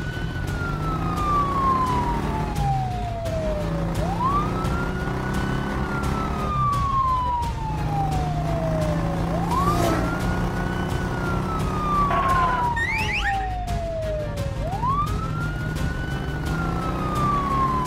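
Police siren wailing: each cycle rises quickly and falls slowly, repeating about every five seconds, over a low steady drone.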